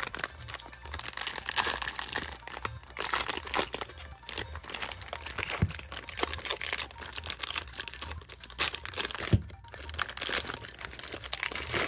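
Foil wrapper of a Bowman Draft trading-card pack crinkling and tearing as it is opened and handled, with a couple of sharp clicks.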